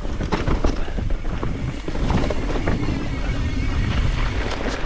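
Mountain bike ridden over rock: tyres clattering on stone and the bike rattling, with many sharp knocks, over wind rumbling on the microphone.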